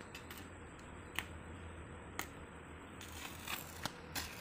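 Electric arc welding on the steel pipe bar of a boom gate: a few sharp clicks, then from about three seconds in a continuous crackle as the arc runs and throws sparks.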